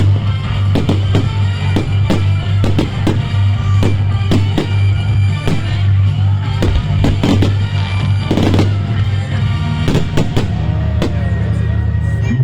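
Fireworks going off in quick succession, sharp bangs and crackles, with a dense crackling cluster about two-thirds of the way through, over loud music from the display's sound system.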